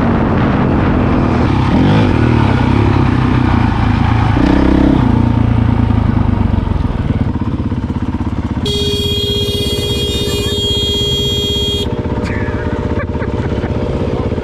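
Honda CRF450L's single-cylinder four-stroke engine running under way on a trail ride, its revs rising and falling for the first several seconds, then holding steadier. About two thirds of the way in, a steady high-pitched whine sounds over it for roughly three seconds.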